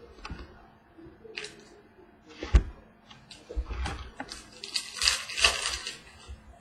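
Trading cards being handled and flipped through: scattered light clicks and papery rustles, with one sharp tap about two and a half seconds in.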